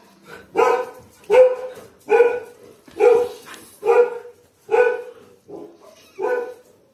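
A dog barking repeatedly in a steady rhythm, about eight barks a little less than a second apart.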